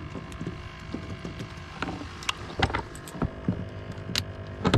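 Handling noises on a fibreglass boat deck: scattered knocks and clicks, with sharper snaps near the end as a hard plastic cooler's lid latches are worked, over a steady low hum.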